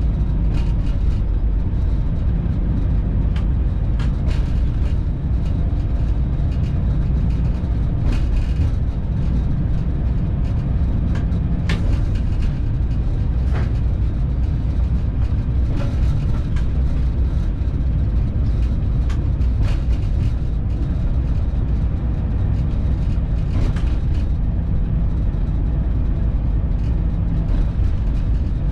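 Locomotive running along the line, heard from inside the cab: a steady low drone from the traction unit with scattered clicks and knocks from wheels on the track.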